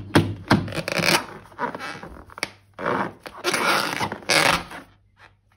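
Irregular crinkling and scraping handling noises as balloons and slime are worked by hand, stopping about five seconds in.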